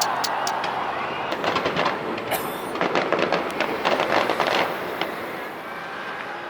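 Fireworks crackling and popping in quick irregular clusters over a steady noisy background, thinning out near the end.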